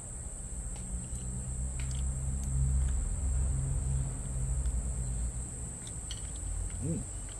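Steady high-pitched drone of insects, with a low rumble that swells about two seconds in and fades again a few seconds later; a short rising-and-falling murmur near the end.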